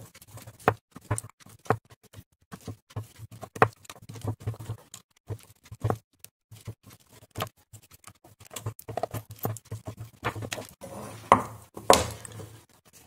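Soldering iron and desoldering wick being worked against the joints of a circuit board: irregular small clicks, taps and scraping, with two louder knocks near the end.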